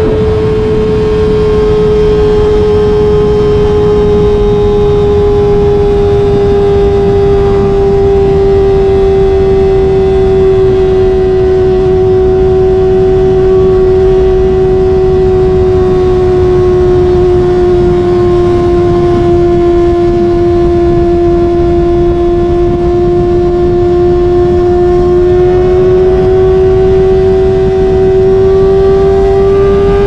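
Kawasaki ZX-25R's 250 cc inline-four engine screaming at steady high revs while cruising at highway speed. Its pitch sags slightly about two-thirds of the way in and climbs again near the end, with wind rush underneath.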